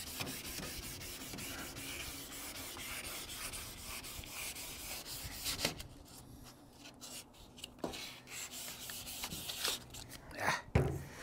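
Hand wet sanding of old car paint: 1200-grit wet-and-dry paper on a sanding block rubbed back and forth over a water-sprayed front fender in quick scratchy strokes. The strokes ease off a little past halfway, then pick up again.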